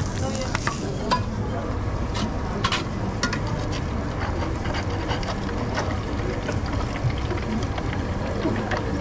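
Metal spatulas scraping and clicking against a flat-top griddle and a wok, a scattered string of short knocks and scrapes over a steady low hum.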